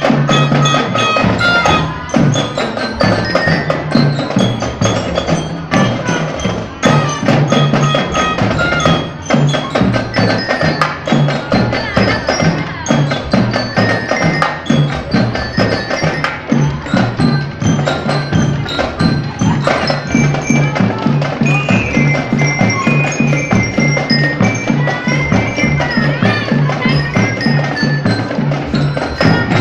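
School marching band playing: drums keep a steady, fast beat under a bright melody on mallet percussion such as a bell lyre.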